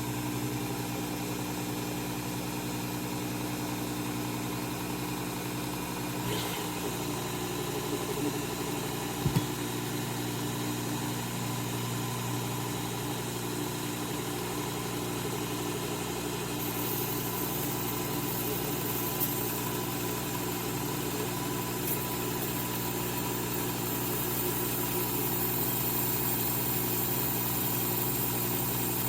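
Work Sharp Knife and Tool Sharpener's motor and abrasive belt running steadily with an even hum and hiss while a pizza wheel is ground against the belt. There is a single knock about nine seconds in, and the hiss turns brighter about halfway through.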